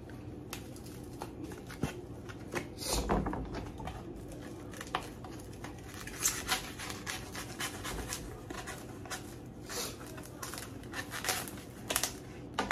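Food packaging being handled during kitchen prep: a foam meat tray and plastic wrap knocked, scraped and rustled on a counter in irregular bursts, loudest about three seconds in and again near the end.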